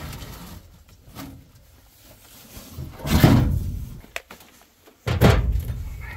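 Two heavy thumps about two seconds apart, each sudden and fading over half a second, with a light click between them.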